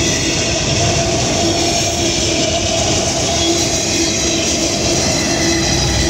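CSX freight train rolling past: a steady rumble and clatter of railcar wheels on the rails, with a faint thin whine over it.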